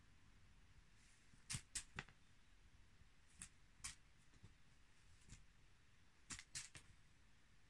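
Near silence: room tone broken by faint, short clicks in three small groups.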